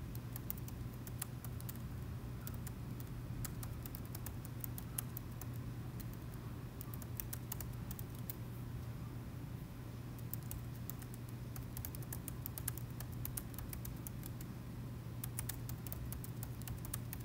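Typing on a laptop keyboard: quick key clicks in several bursts with short pauses between, over a steady low hum.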